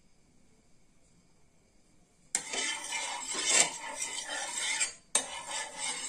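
A spatula scraped over an oiled tawa (flat griddle), spreading the oil. There are two spells of scraping: the first starts about two seconds in and lasts nearly three seconds, and a shorter one follows near the end.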